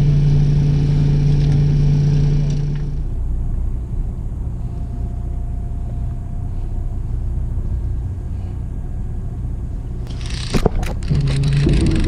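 Fishing boat's engine running with a steady low rumble; a steady hum over it cuts off about three seconds in. Near the end come a couple of sharp knocks, then a wavering higher whine.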